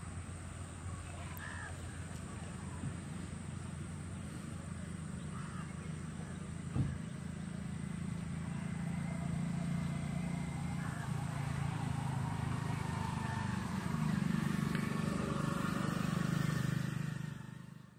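A low, steady engine hum, like a passing road vehicle, grows louder through the second half, with faint voices in the background. It all fades out at the very end.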